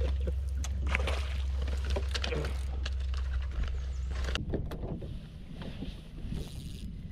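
Wind rumbling on the microphone over water splashing and scattered knocks on a bass boat's deck while a hooked bass is landed; the sound changes abruptly about four seconds in.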